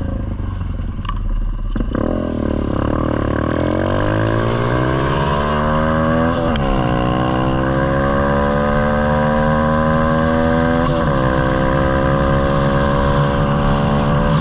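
Small four-stroke pit bike engine accelerating through the gears. The pitch climbs steadily, drops suddenly about six and a half seconds in at an upshift, climbs again, and shifts again near eleven seconds before settling to a steady cruise. Wind noise rumbles underneath.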